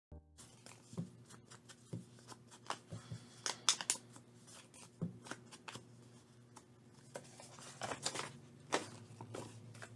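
Sheets of paper being handled on a desk, heard as light rustles, scrapes and scattered taps over a faint steady hum.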